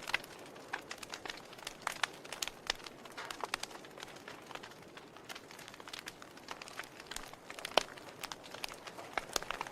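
Wood campfire crackling, with irregular sharp pops and snaps over a soft hiss; one louder pop about eight seconds in.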